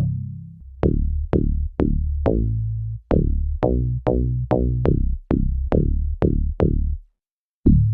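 MES Mini 7 synthesizer playing a punchy, crisp bass patch: a run of short plucked bass notes, about two a second, each with a sharp attack that quickly dies away. The notes stop briefly about seven seconds in, and another bass patch starts just before the end.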